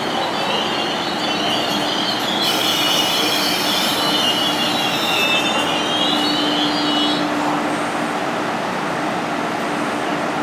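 KTT through train running non-stop through a station, its wheels squealing high over the steady rumble of the cars on the rails; the squeal stops about seven seconds in while the rumble goes on.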